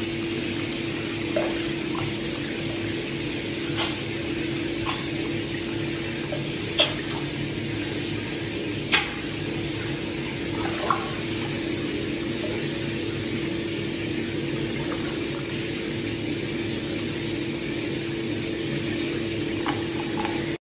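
Water running steadily in a bathtub with a steady hum, and a few sharp clicks and splashes from an Asian small-clawed otter playing with rubber toys in the water; the loudest clicks come about 7 and 9 seconds in.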